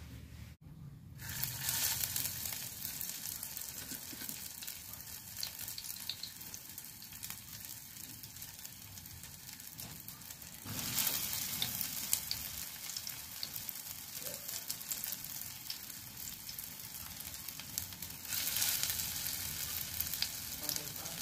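Moringa-leaf pakoras sizzling as they fry in hot oil. The sizzle jumps louder three times as each fresh ball of batter goes into the oil: about a second in, about halfway through, and near the end.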